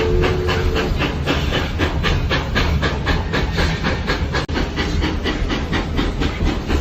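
Train rolling past at close range, its wheels clacking rapidly and evenly over the rail joints over a steady rumble and hiss. A brief faint two-note tone fades out within the first second.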